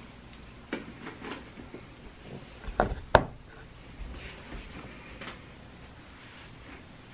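Handling noise as a crossbody bag is put on and adjusted: soft rustles of clothing and strap, with two sharp clicks close together about three seconds in.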